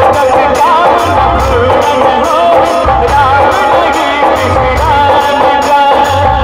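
A man singing a folk song live into a microphone with a sliding, ornamented vocal line, over band accompaniment with keyboard and a steady drum beat.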